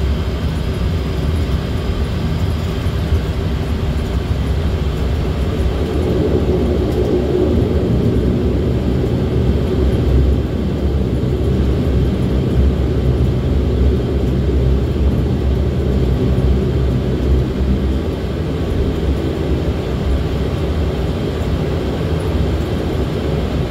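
Bombardier Dash 8 Q400's Pratt & Whitney PW150A turboprop engines and propellers droning steadily at low taxi power, heard from inside the passenger cabin while the aircraft taxis after landing.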